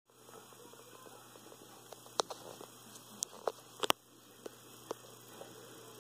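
Caribbean land hermit crabs' shells and legs clicking and tapping on the sand and dish, a handful of sharp clicks in the middle seconds, over a steady electrical hum.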